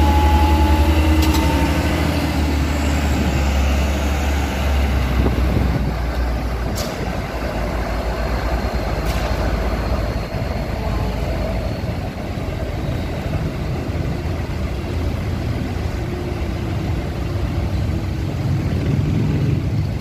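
Hino concrete mixer truck's diesel engine running as the truck drives past close by, its deep rumble loudest for the first few seconds and then dropping away as the truck pulls off into the distance.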